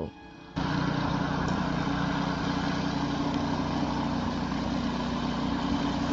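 A vehicle engine running steadily, cutting in abruptly about half a second in.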